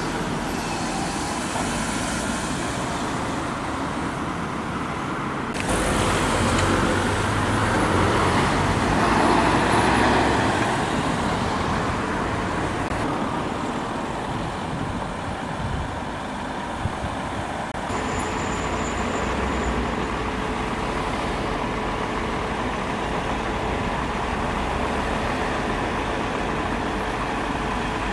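Road traffic and vehicle engines running steadily, including the engine of a truck-mounted crane. The noise swells for several seconds about a fifth of the way in, and the background changes abruptly twice.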